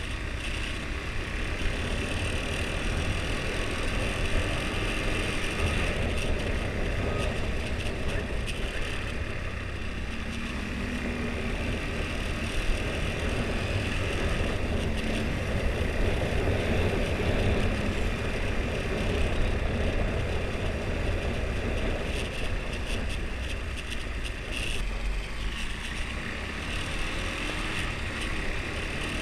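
Husqvarna Svartpilen 401's single-cylinder engine with its stock exhaust, running while the bike is ridden, mixed with steady wind and road noise.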